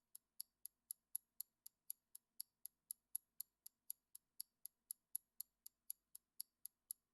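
Countdown timer sound effect ticking faintly and evenly, about four ticks a second, marking the time allowed to answer a quiz question.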